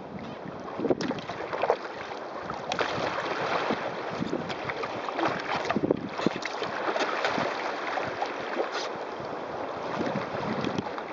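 Water rushing and splashing against a sailing kayak's hull as it runs through choppy waves, with many short splashes, and wind buffeting the microphone.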